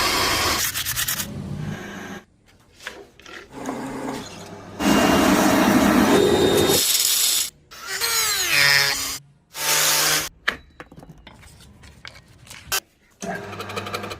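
Power tools working rusted steel in several separate loud bursts with quieter gaps between them, the grinding and sanding of a metal gate handle being shaped. A little past the middle, a motor's pitch slides as it changes speed.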